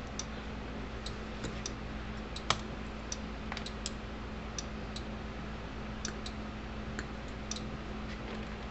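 Faint, irregular small clicks and taps over a steady low hum, one click a little louder about two and a half seconds in.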